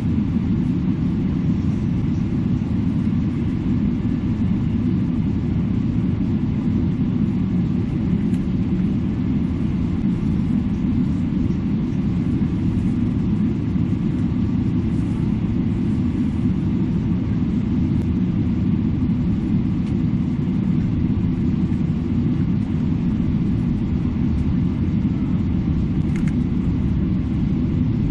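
Steady low rumble of a jet airliner's cabin while the aircraft taxis, engines at idle.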